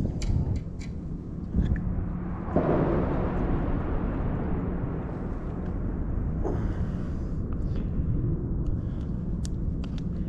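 Wind buffeting the microphone outdoors: a steady low rumble, with gusts swelling about two and a half seconds in and again about six and a half seconds in, and a few faint clicks.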